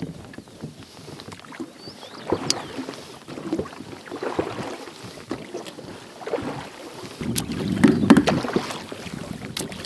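Oars rowing an inflatable boat: the blades dip, swish and splash in the water in uneven strokes, with a few sharp knocks. The water rush grows louder about three quarters of the way through.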